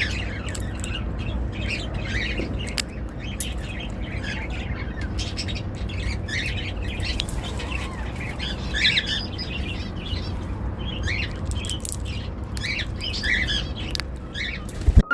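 An Indian ringneck parrot cracking sunflower seeds, sharp clicks scattered through, amid frequent short chirps and squawks. A steady low hum runs underneath.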